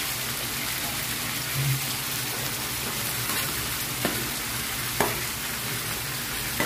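Chicken pieces sizzling in hot oil in a wok, a steady frying hiss, with a couple of sharp clicks about four and five seconds in as chicken gizzards are tipped in from a plate.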